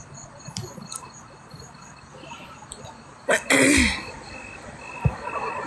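A woman lets out one short explosive burst of breath, like a sneeze, about three seconds in; she has a sore throat. Crickets chirp in a steady, even rhythm behind it.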